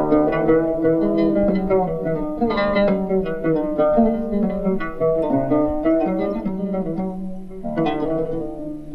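Background music: a melody of plucked string notes over held lower notes.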